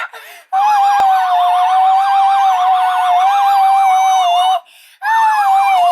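Electronic sound-effects toy playing a synthesized siren-like tone with a fast warble, held for about four seconds. It cuts off, then starts again after a short pause.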